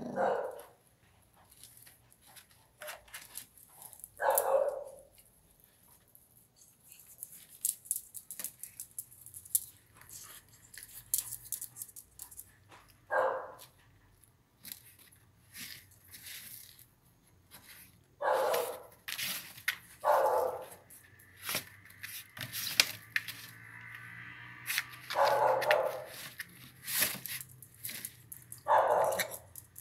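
Miniature pinscher's short growls and barks, about seven of them spread out, between scratching and rustling as the dog digs at a blanket in a cardboard box. The dog is guarding a piece of stale bread and seems to be burying it there.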